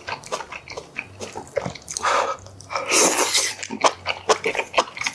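Close-miked eating sounds: wet chewing and mouth clicks from a mouthful of kimchi stew and noodles, with two loud slurps about two and three seconds in.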